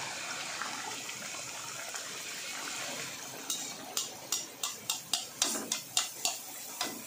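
Wheat-flour poori deep-frying in hot oil in an iron kadai: a steady, even sizzle of bubbling oil. From about halfway, a perforated steel skimmer works the poori in the oil, adding sharp crackling splashes about three times a second.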